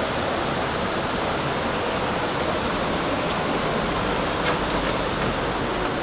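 Steady rushing of flowing creek water, an even hiss with no pauses.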